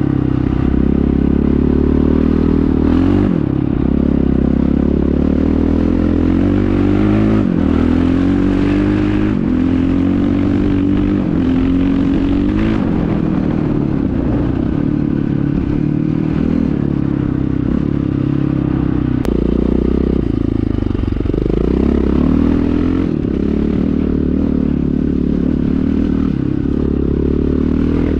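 1997 KTM 620 LC4's single-cylinder four-stroke engine running through an Akrapovic exhaust, revved again and again: the pitch climbs and falls back every few seconds.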